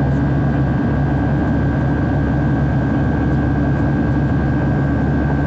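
Steady jet engine and airflow noise heard inside the cabin of a Boeing 757-300 on its departure, a deep rumble with a constant high, thin tone over it.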